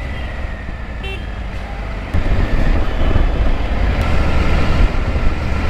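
Motorcycle riding through city traffic at low speed: the Triumph Tiger 850 Sport's three-cylinder engine and wind rumble on the on-bike microphone, getting louder about two seconds in. A brief horn toot sounds about a second in.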